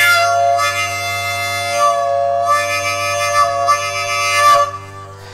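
Harmonica played solo: slow held chords in long phrases, breaking briefly twice, with the last phrase ending near the end.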